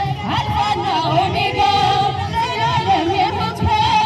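Music with singing: one voice line carries a wavering, ornamented melody over a steady low accompaniment, unbroken throughout.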